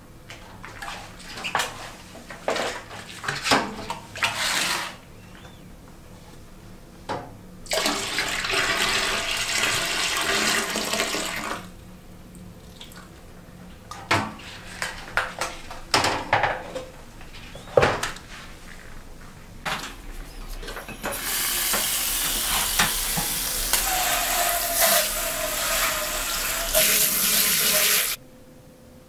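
Leftover wort and trub poured from a stainless steel Grainfather kettle into a toilet, in several splashing pours with knocks of the metal kettle. A longer stretch of running water follows in the last third as the kettle is rinsed, and it stops suddenly near the end.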